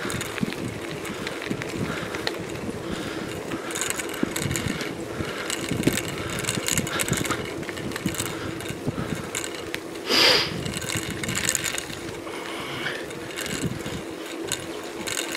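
Bicycle being ridden on a tarmac road: tyres running on the surface with a steady hum and small rattles from the bike, and wind on the microphone. A short, sharp, high-pitched sound stands out about ten seconds in.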